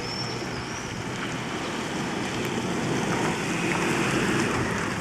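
A vehicle driving through deep standing water on a flooded street, its tyres churning and spraying water; the wash swells to its loudest about four seconds in and then eases.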